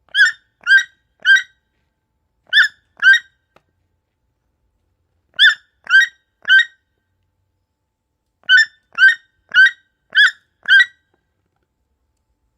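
Baby toucan calling: short, pitched calls at about two a second, in bursts of two to five with pauses of a second or two between the bursts.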